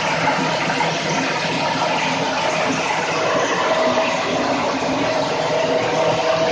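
Hammer mill with a cyclone running steadily: a loud, even rushing noise with a faint steady hum in it.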